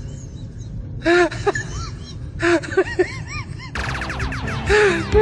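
Mobile phone ringtone playing from the handset's speaker: short bursts of chirping, bending notes, then many sweeping gliding tones layered together from about three-quarters of the way in, over a steady low hum.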